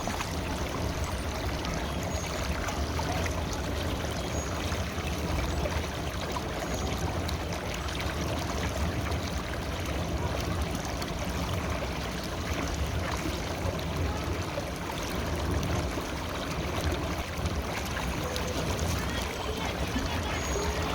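River water running: a steady, unbroken rush of flowing water.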